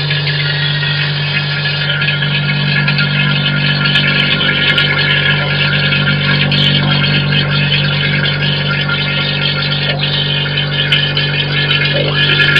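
Vacuum pump running with a steady hum, drawing down a vacuum chamber to degas freshly mixed RTV silicone rubber.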